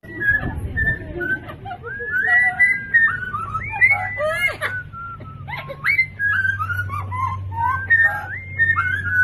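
Two Amazon parrots calling back and forth in a rapid run of rising and falling whistles and squawky chatter. A low steady hum sits underneath, stronger in the second half.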